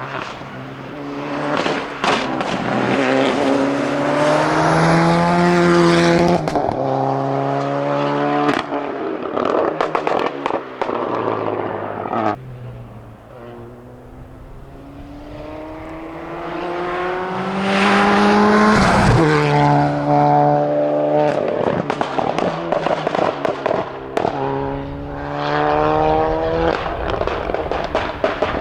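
Seat Leon Supercopa race car accelerating flat out, its engine pitch climbing and dropping back at each gear change, in two hard runs with a quieter spell between them. Sharp cracks come through between the shifts.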